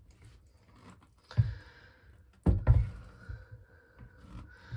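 A few dull thumps and knocks of objects being handled, the loudest about two and a half seconds in, with quiet between them.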